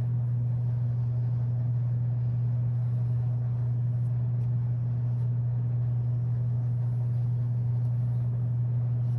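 A steady low hum that does not change, with a faint even hiss above it; no separate strokes or knocks stand out.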